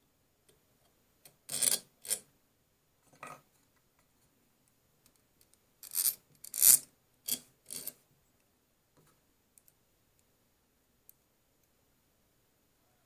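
Small steel hardware being handled: a nut and washers clink and scrape on a threaded steel rod. The sounds come in short bursts, about two seconds in and again from about six to eight seconds in, with faint ticks between.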